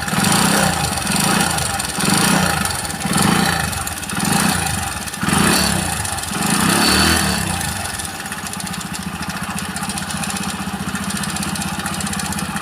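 Hero Honda CD Deluxe's single-cylinder four-stroke engine blipped on the throttle about six times, then settling to a steady idle for the last few seconds. Through it runs an abnormal noise from inside the engine that sounds like a timing chain. A new genuine timing chain kit with tensioner and freshly set tappets have not cured it, and the mechanic who overhauled the engine blames the cylinder head.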